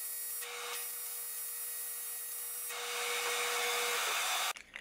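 TIG welding arc on an aluminum plate: a steady hissing buzz that cuts off suddenly about four and a half seconds in as the arc is stopped.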